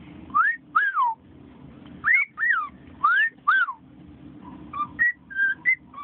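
Cockatiel whistling: three two-part whistles, each a rising note then a falling one, followed near the end by a few short chirps.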